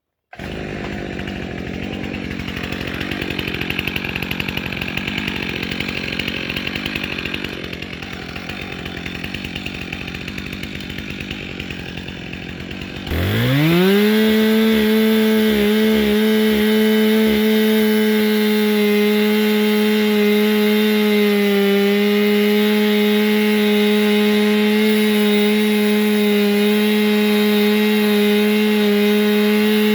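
Stihl MS 362 C two-stroke chainsaw running at low revs. About 13 seconds in it is throttled up in a quick rising whine to full speed, and it holds a loud, steady high-revving note for the rest, as the face cut in the tree begins.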